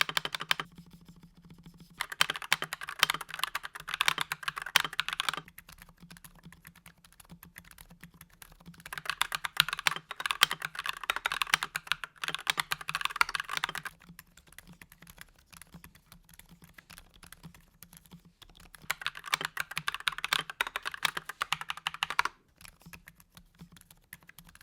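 Typing on a mechanical keyboard, an Akko 5087B Plus modded with Gazzew Boba U4 silent tactile switches. The keystrokes are muted and clicky, in three stretches of fast, dense typing with slower, quieter keystrokes between them.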